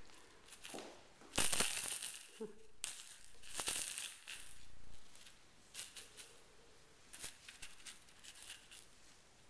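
Kittens batting at a wand toy and scrabbling on a hardwood floor: irregular rattling and scuffling, loudest in two stretches in the first half, with scattered lighter clicks after.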